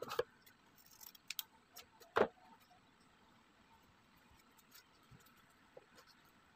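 Hand-handling noise of velvet fabric being folded over a cardboard piece: scattered short rustles and taps, the loudest a sharp knock about two seconds in, then only a few faint ticks.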